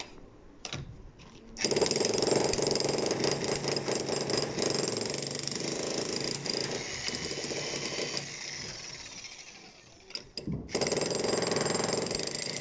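Dongcheng electric demolition hammer with a chisel bit, pounding in rapid blows as it breaks up a hard concrete floor slab. It starts about one and a half seconds in, dies down until it stops for a moment near ten seconds, then starts hammering again.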